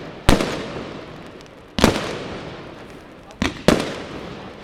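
Aerial firework shells bursting in a display: four sharp, loud bangs about a second and a half apart, the last two close together, each dying away slowly in a long echoing tail.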